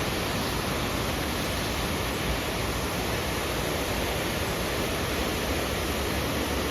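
A waterfall's steady rush of falling water, an even hiss that does not change.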